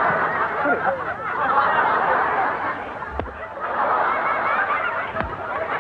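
Audience laughing and chattering in waves, with two dull knocks about three and five seconds in.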